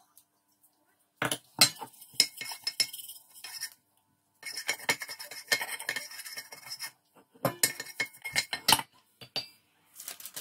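Metal kitchenware clinking and knocking in three bursts of quick strikes, as an aluminium pressure-cooker pot is handled.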